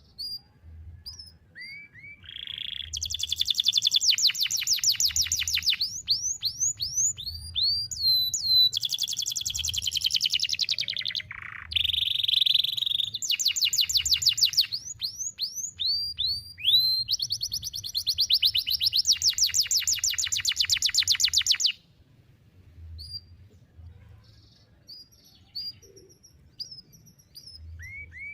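Domestic canary singing a long, unbroken song of fast rolling trills and swooping whistles for about twenty seconds, then breaking off into scattered short chirps near the end.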